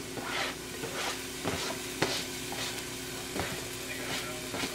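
Diced jalapeño scraped by hand off a flexible plastic cutting mat into a stainless steel pan of butter: a run of short scrapes and taps, the sharpest about two seconds in, over a light sizzle and a steady low hum.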